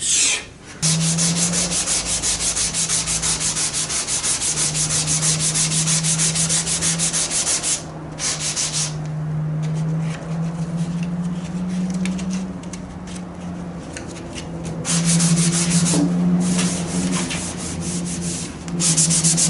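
Hand-sanding primer-surfacer on a car body panel with a sanding block: quick, even back-and-forth rubbing strokes, breaking off briefly about eight seconds in and again near the end. The block is levelling out runs in the primer, with a guide coat showing the low spots.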